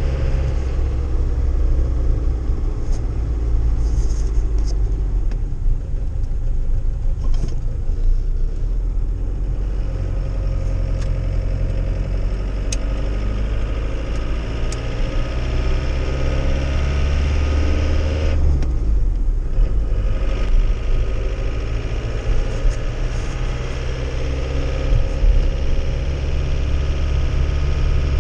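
Cab interior sound of a 1993 Iveco Turbo Daily's 2.0 turbodiesel engine running on the road with a load aboard, over a steady low road rumble. The engine note rises and falls slowly, with a brief dip about two-thirds of the way through.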